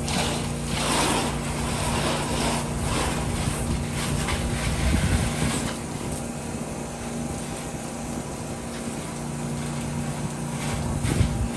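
Pressure washer running: a steady engine hum under an uneven hiss of water spray, the hiss heavier in the first half.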